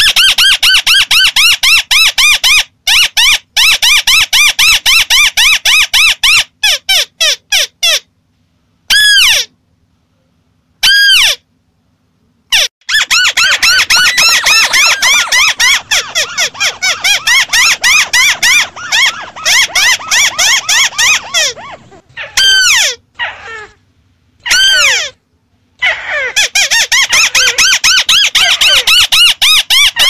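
White-browed crake calling: long runs of rapid, repeated arching chattering notes, several a second, broken by abrupt silent gaps of a second or so.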